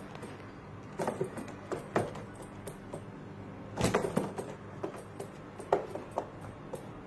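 Pigeons moving about in a small loft: irregular light taps and scuffs, with a few louder knocks about a second in, at two seconds, and around four seconds.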